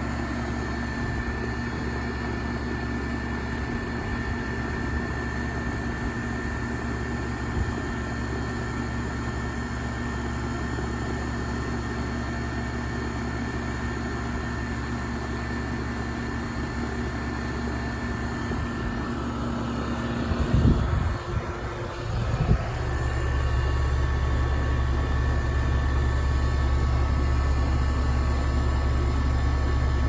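2001 York H1RA024S06D central air conditioner's outdoor condensing unit running, its compressor and condenser fan giving a steady hum. Two knocks come a couple of seconds apart about two-thirds of the way in, after which the low hum is louder.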